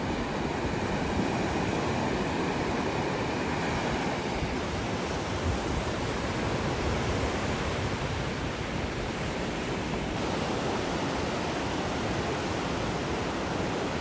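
Sea waves breaking and washing up on a sandy beach: a steady rushing surf.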